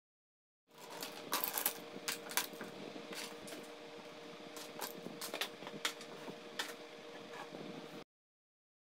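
Faint room sound with a steady hum and scattered light clicks and taps as a hand handles a sketchbook and other things on a wooden table. The sound starts just under a second in and stops abruptly near the end.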